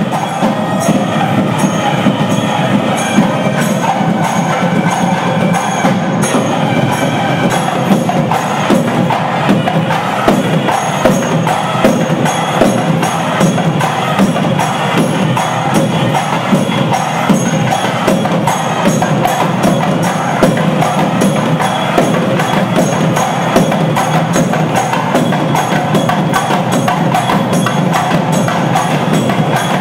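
Loud percussion-led music with fast, dense drum and wood-block-like strokes that never stop. A wavering melodic line rides over it for the first several seconds.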